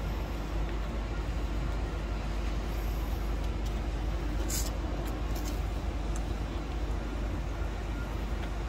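Steady low background rumble of a huge outdoor crowd standing silent, with no voices standing out and a few faint clicks about halfway through.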